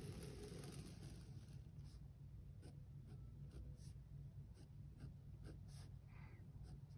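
A Pilot G2 0.38 mm gel pen faintly scratching on SOHO Urban Artist sketchbook paper while drawing: one long stroke in about the first second and a half, then a run of short strokes and ticks. Under it is a steady low hum.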